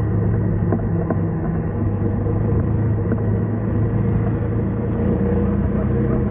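TVS XL100's single-cylinder four-stroke engine running steadily at an even, low pitch.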